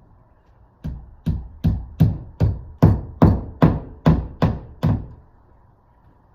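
A hammer driving a nail into the wall: about eleven steady, evenly spaced blows, roughly two and a half a second, starting about a second in and stopping near five seconds.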